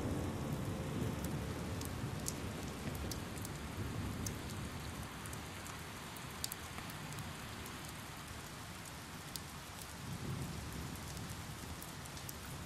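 Steady rain falling, with scattered sharp drop hits standing out; it slowly grows quieter.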